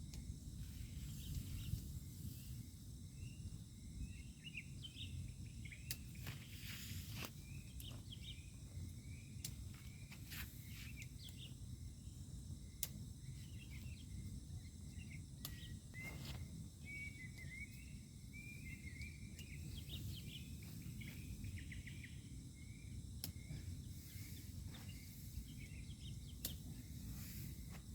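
Faint night ambience: insects trilling steadily in high tones, with short chirping calls coming and going and scattered sharp clicks, over a low steady rumble.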